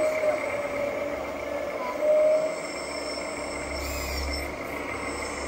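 Radio-controlled construction machines running, a steady mechanical whine of several held tones, with a short louder squeal about two seconds in.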